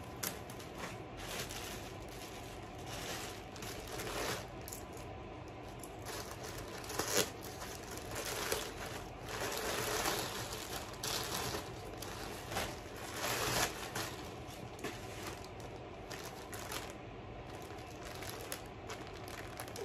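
Plastic packaging rustling and crinkling in irregular handfuls: a plastic mailer bag and clear poly bags being opened and rummaged through, with a few louder crackles.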